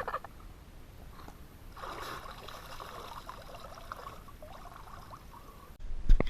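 River water trickling and gurgling, strongest from about two seconds in. Near the end, after an abrupt cut, come a couple of sharp knocks.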